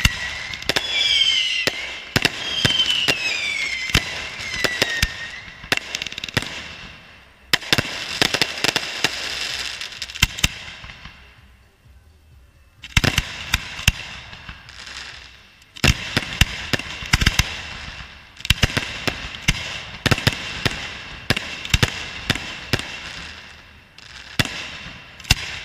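Fireworks finale: dense volleys of sharp bangs over a crackling hiss, with whistling effects wavering and falling in pitch over the first few seconds. The barrage dies down briefly about eleven seconds in, then comes back in fresh waves of bangs.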